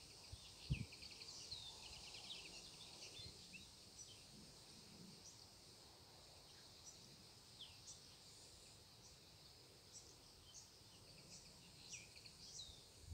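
Faint, scattered chirps of small birds over a quiet outdoor background, with a soft low thump about a second in.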